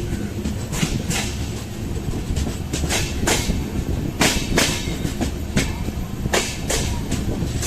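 Express train of LHB passenger coaches rolling past on the track, over a steady low rumble. Its wheels click over rail joints in quick pairs, a few times.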